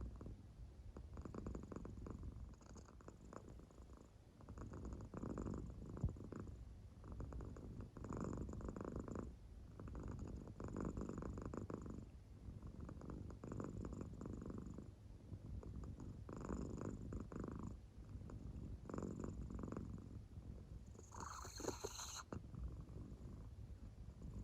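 American Shorthair cat purring softly in deep sleep, the purr swelling and fading with each breath about every two and a half seconds. Near the end a brief higher-pitched sound cuts in for about a second.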